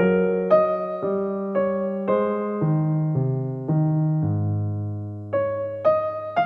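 Background music played on electric piano: a slow run of chords, each struck about every half second, with one longer held chord in the middle.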